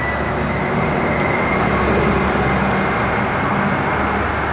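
Steady low engine rumble with a faint high whine, growing a little louder about two seconds in and then easing.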